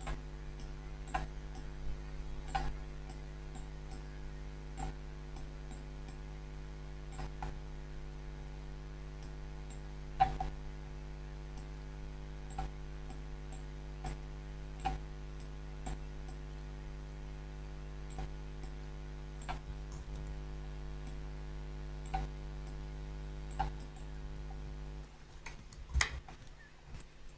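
Computer mouse clicking every second or two, over a steady electrical hum. The hum drops away near the end, followed by a quick run of clicks.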